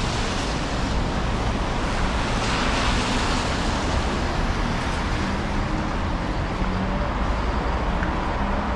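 Steady road traffic noise of a city street, with cars passing.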